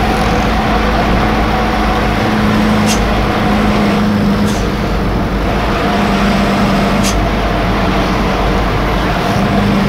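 Truck engine running, heard from inside the cab: a steady drone with a constant low hum, and a few short high ticks.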